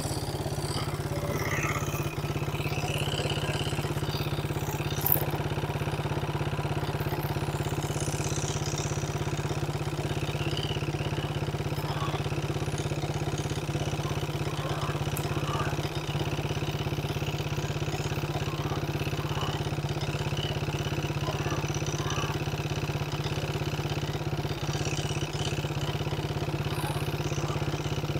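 Motorcycle engine running steadily at an even, unchanging pitch, with a brief click about five seconds in.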